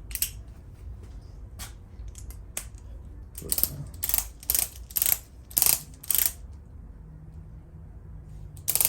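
Ratchet torque wrench being swung in short strokes on the handlebar clamp bolts, its pawl clicking. It runs about two strokes a second for a few seconds, after a few single clicks, then pauses before another stroke near the end.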